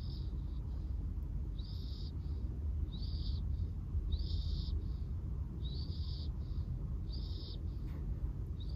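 Staffordshire bull terrier puppy snoring in its sleep, a thin high whistle on each breath, about seven in a row, evenly spaced a little over a second apart, over a steady low rumble.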